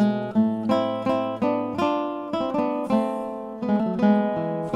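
Background music: acoustic guitar, plucked notes following one another in a steady rhythm.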